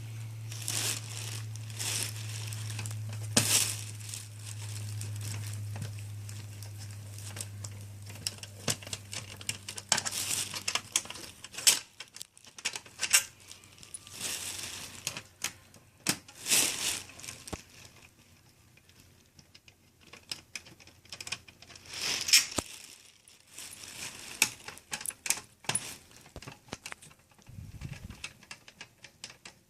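Hands working on a partly dismantled Xbox 360: scattered clicks, small rattles and rustling as screws and plastic parts are handled. A low steady hum runs under it for the first ten seconds or so, then stops.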